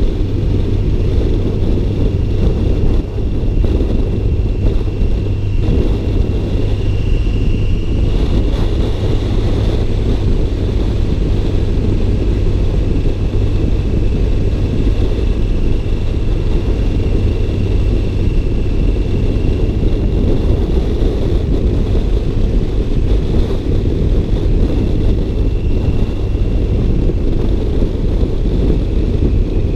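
Car running, a steady low rumble, with a faint thin whine drifting above it. The car has a slight misfire at low speed, which turned out to be caused by water trapped in a spark plug well.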